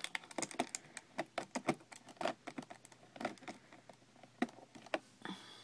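Small plastic parts and packaging being handled: a quick irregular run of light clicks and crinkles as the figure's spare plastic hands are taken out and turned over.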